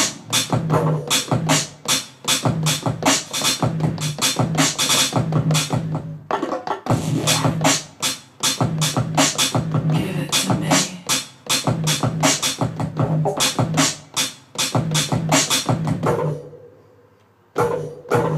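Electronic beat played on a Native Instruments Maschine Mikro: a fast, steady run of percussive hits over a repeating low thump. It fades out for about a second near the end, then comes back abruptly.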